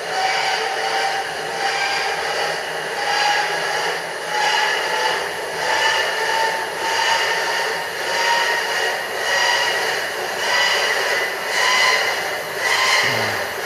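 Hand-cranked inertia starter on a 1942 Stearman Model 75's radial engine whining as its flywheel is wound up for a hand start. The whine climbs slowly in pitch and swells about once every 0.8 seconds with each turn of the crank.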